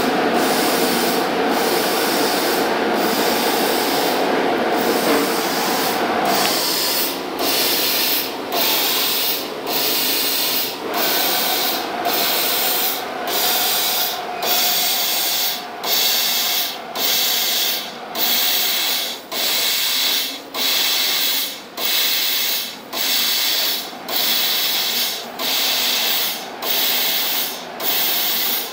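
Sheet-metal laser cutting machine cutting aluminium sheet: the loud hiss of the cutting head's assist-gas jet. For the first several seconds it is continuous with a steady hum. Then it stops and starts again about every second and a quarter as the head cuts one small hole after another.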